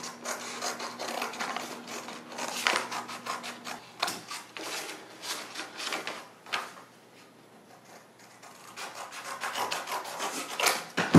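Scissors cutting thin cardboard, with the card scraping and rustling as it is handled and turned: irregular snips and scrapes, quieter for a stretch past the middle and busier again near the end.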